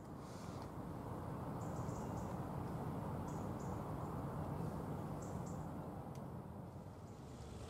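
Steady low outdoor rumble with a few short, high bird chirps scattered through it.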